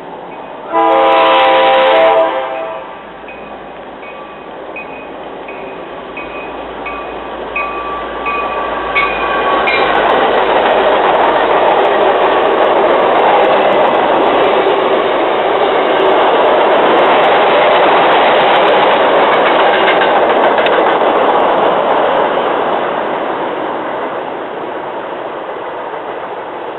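MBTA commuter train approaching and passing at speed: the locomotive gives one long horn blast about a second in, and a bell rings about twice a second for several seconds. Then the rumble and wheel clatter of the bi-level coaches builds, holds for over ten seconds and fades near the end.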